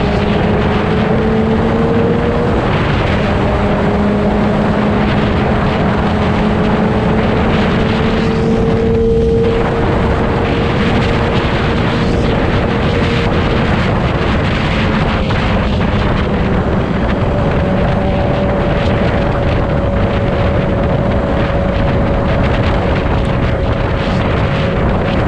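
Sport motorcycle engine running at a steady cruising speed, its note drifting slightly up and down, heard from the bike itself under heavy wind noise on the microphone.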